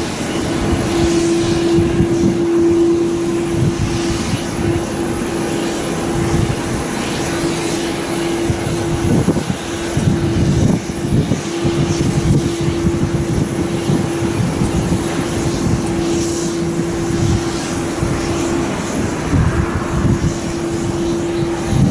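Distant aircraft engines running at an airport, a steady drone with a constant hum, overlaid by an irregular low rumble of wind buffeting the microphone.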